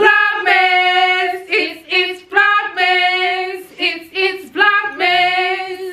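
A woman singing unaccompanied, holding long steady notes in short phrases with brief breaks between them.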